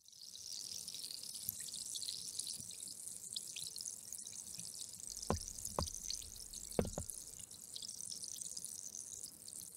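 Fizzing of effervescent bubbles in water: a steady high crackling hiss of many tiny bubbles popping, with three brief low pops between about five and seven seconds in.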